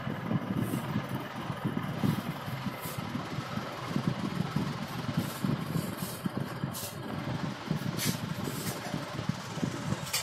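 Domestic cat purring steadily, a continuous low rumble, while her kittens nurse. A few faint short clicks or rustles come over it.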